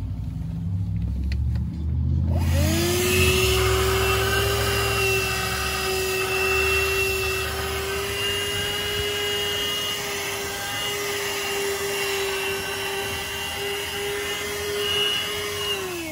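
Cordless handheld car vacuum switched on about two seconds in. Its motor spins up to a steady high whine and runs as it sucks debris off the car's floor carpet through a narrow nozzle, then winds down with falling pitch at the very end.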